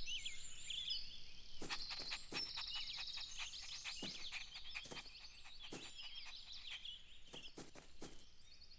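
Outdoor garden ambience of small birds chirping and twittering, with scattered soft taps.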